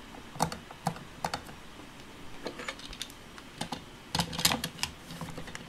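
Irregular light plastic clicks and taps as hands handle a plastic Play-Doh ice cream maker toy, fitting dough into its sprinkle maker, with a quick cluster of clicks about four seconds in.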